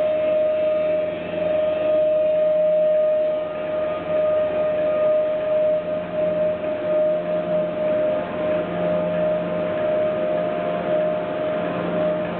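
A steady, single-pitched mechanical whine, held without a break, with a fainter low hum beneath it.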